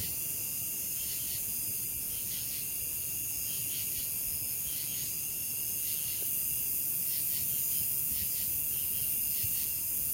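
Night insects, crickets and katydids, calling in a steady pulsing chorus, with a high hiss above it.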